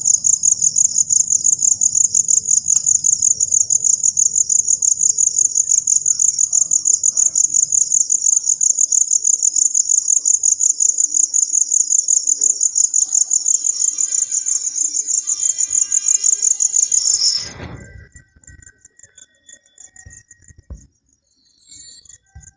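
Cricket chirping loudly in a fast, even, high-pitched pulsing trill that cuts off suddenly about seventeen seconds in, with a low thump as it stops; afterwards only faint tones and small knocks remain.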